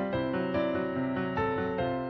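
Background music on a keyboard instrument, a steady run of notes over held chords.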